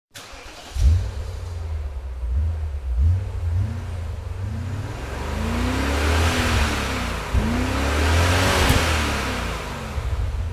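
Car engine revving over and over, each rev rising and falling in pitch over a deep rumble, with a hissing whoosh that swells in the middle and fades; a produced intro sound effect.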